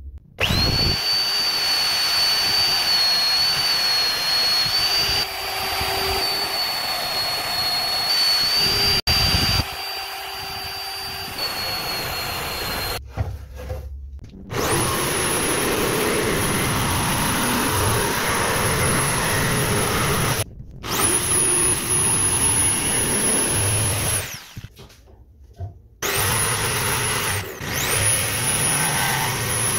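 Power tools running: a steady motor whine for about the first 13 seconds, then an electric jigsaw cutting wood in three runs, stopping briefly between them.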